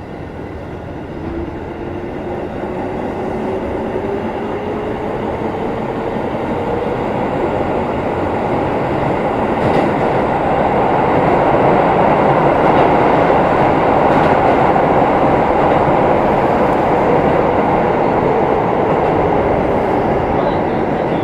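Keikyu 1500-series field-chopper motor car running, heard from inside the car. A whine from the traction motors and gears rises slowly in pitch as the train accelerates, and the running noise grows louder over the first ten seconds or so, then holds steady.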